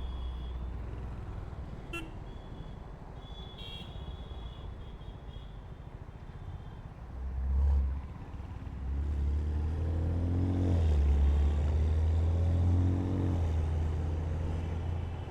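BMW M2's turbocharged straight-six running in traffic, its pitch rising and falling as it is revved in the second half. Short car-horn toots sound in the first few seconds.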